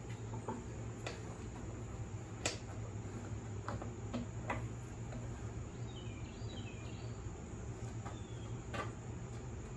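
Scattered sharp clicks and light knocks of hand tools and metal parts being handled, the loudest about two and a half seconds in, over a steady low hum. A bird chirps briefly a little past the middle.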